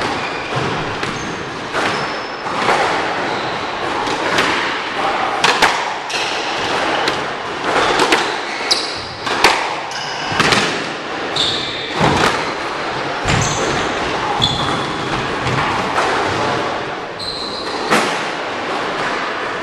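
Squash rally: the ball smacking off rackets and the court walls in a quick, irregular series of sharp hits, echoing in the enclosed court, with short high squeaks of court shoes on the hardwood floor between shots.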